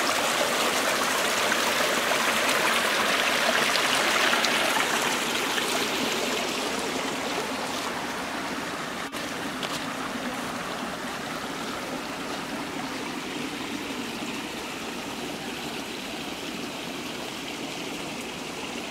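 Spring water of the Zadorra river's source running out of the rock and over stones in a shallow stream, a steady rushing that grows gradually quieter after about five seconds.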